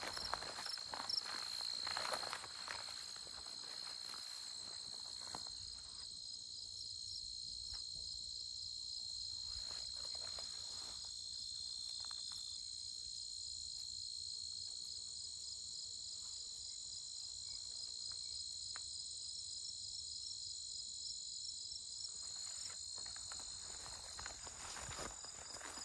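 Crickets and other meadow insects singing steadily: a continuous high trill with a rapid pulsing chirp above it. Footsteps swish through the grass for the first few seconds and again near the end, with a still stretch between.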